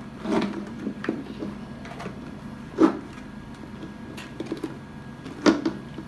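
Plastic knocks and clicks from a collapsible mini portable washing machine's tub and lid as it is pushed open and pressed into shape by hand: a few separate knocks, the loudest near the middle.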